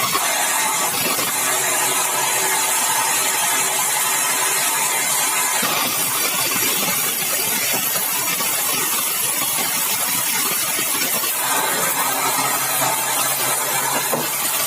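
Sawmill saw running steadily, cutting a large, dry, hard red balau log. A loud, even noise with a strong hiss on top; its lower tone shifts slightly about six seconds in and again near eleven seconds.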